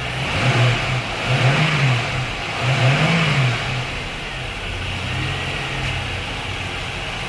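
Chevrolet Lumina SS's 5.7 L LS1 V8 revved in three quick throttle blips, then settling back to a steady idle. It revs cleanly and runs smoothly now that the failed fuel pump has been replaced.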